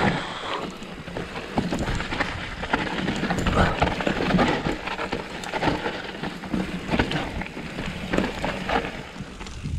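Trek Slash 8 full-suspension mountain bike descending a rough, wet trail: the bike rattles and clatters with many irregular knocks over a steady rush of noise.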